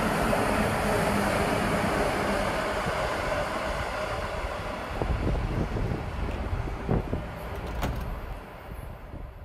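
Electric commuter train running past: a steady rumble of wheels on rails with a few sharp clacks in the second half, dying away near the end.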